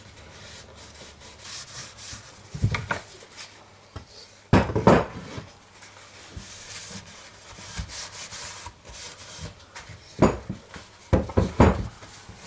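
Paper towel rubbing over a soft-wood frame to wipe off excess linseed oil, broken by several wooden knocks as the frame is handled and turned on the wooden workbench. The loudest knock comes about five seconds in, and a cluster of knocks comes near the end.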